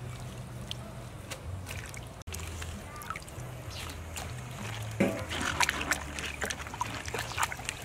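Water sloshing and splashing in a steel basin as bunches of green onions are rubbed and rinsed by hand, growing louder and busier about five seconds in.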